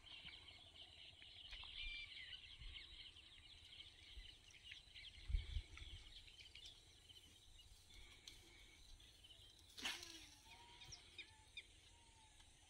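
Faint outdoor quiet with small birds chirping, thickest in the first half. A low bump comes about five seconds in and a sharp click near the ten-second mark, followed by a few short calls.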